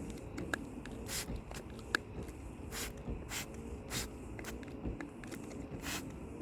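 Freshly replaced rear wiper blade of a 2015 Toyota RAV4 sweeping across the wet back window, making repeated short swishes over a low steady hum.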